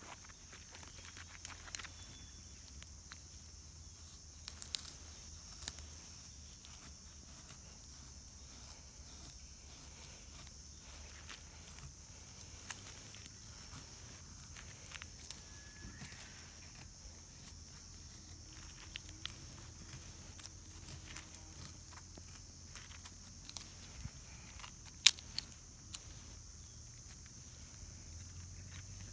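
Wood fire crackling with irregular sharp pops and snaps, one loud pop about 25 seconds in, over a steady high-pitched insect chorus.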